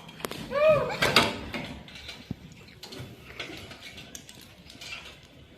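A woman coughing forcefully twice, about half a second apart, the first with a short voiced onset. This is the deliberate 'effective cough' technique, done after deep breaths to bring up phlegm. Softer knocks and rustles follow.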